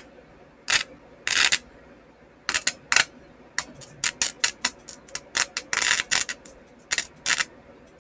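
Electric sparks snapping and crackling as the lead of a homemade capacitor-discharge welder, charged from a 30 V power supply, is touched to a grounded sheet-metal chassis. Irregular sharp cracks, some drawn out into short buzzes, coming thick and fast from about three and a half to six and a half seconds in.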